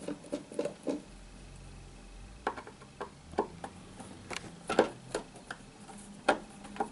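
Hand screwdriver undoing the case screws of a vintage hi-fi amplifier: irregular small clicks and taps of the tool and screw against the metal panel, faint at first and sharper from about two and a half seconds in.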